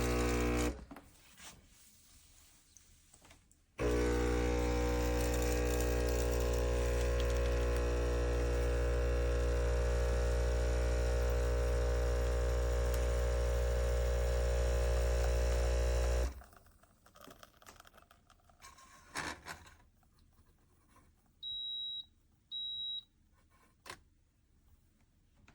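Neretva 20-bar espresso machine's vibration pump buzzing as it pulls a single shot. It runs for a moment and stops about a second in, then after a pause of about three seconds runs steadily for about twelve seconds and cuts off. Two short high beeps follow.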